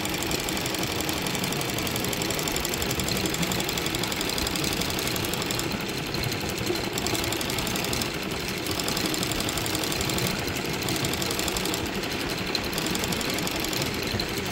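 Embroidery machine with a sequin attachment running, its needle stitching sequins onto fabric in a fast, steady mechanical clatter. The higher rattle drops away briefly about every two seconds in the second half.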